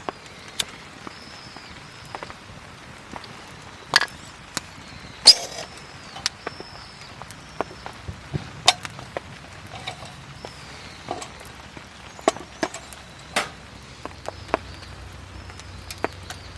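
Wood campfire crackling, with irregular sharp pops, the loudest about five seconds in, over a faint steady hiss.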